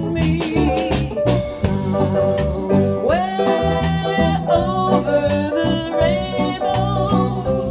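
Live rock-and-roll band playing: drum kit, electric bass, electric guitar and keyboard, with steady drum hits throughout. About three seconds in, a lead line slides up into a long held note.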